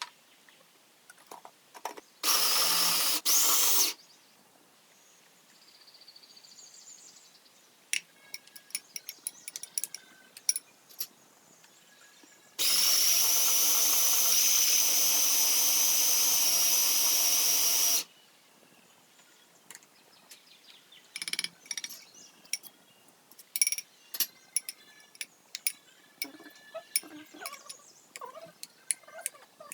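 Electric kitchen blender running: two short pulses about two seconds in, then one steady run of about five seconds. In between and afterwards come scattered light clicks and knocks of utensils being handled.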